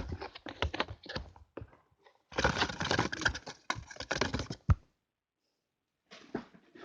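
Cardboard advent-calendar drawer being opened and its packaging handled: a run of sharp clicks and taps, then a couple of seconds of dense crackling and rustling that ends in a sharp click, with more crackling near the end.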